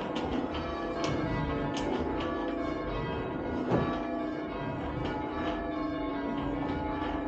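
Church tower bells being rung down in rounds: one strike after another at uneven spacing, about one or two a second, with the bells' tone ringing on between strikes.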